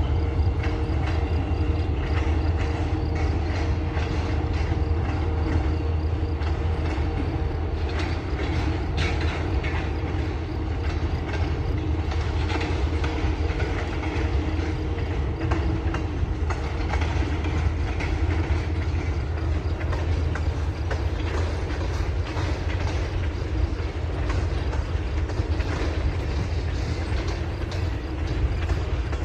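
Norfolk Southern freight train cars (flatcars, tank cars, a boxcar) rolling steadily past: a continuous low rumble with the wheels clicking over rail joints.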